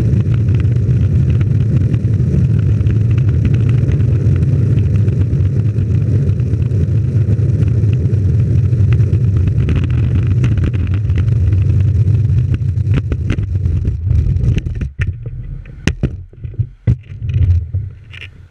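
Longboard wheels rolling over rough asphalt: a loud, steady low rumble carried through the board into the camera mounted on it. About fourteen seconds in, the rumble fades as the board slows to a stop, followed by a string of sharp knocks and clicks.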